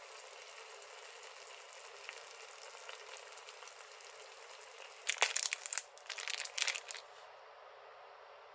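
Thick, sugary gochujang-ketchup sauce sizzling and bubbling around fried mochi in a frying pan, a steady crackly hiss. About five seconds in comes a couple of seconds of much louder, choppy crackly noise.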